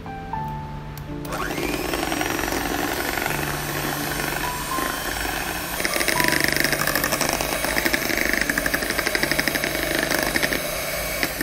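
Electric hand mixer starting about a second in and running steadily, its twin beaters whirring through thick curd batter in a bowl, with a fast rattle in the second half. Background music plays throughout.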